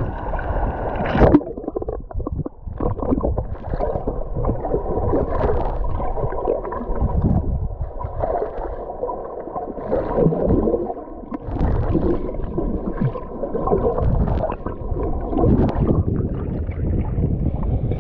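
Sea water sloshing and gurgling over a GoPro Hero 8 bobbing at the surface and dipping underwater in small waves, heard through the camera's own microphone as a dull, muffled wash with irregular splashes.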